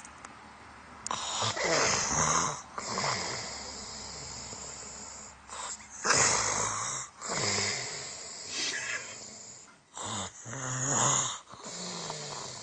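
A man snoring in his sleep: three loud snores about four to five seconds apart, with quieter breathing between them.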